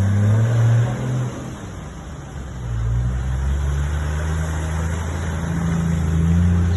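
A vehicle's engine revving: the revs rise, ease off after about a second, then build again with the pitch climbing slowly.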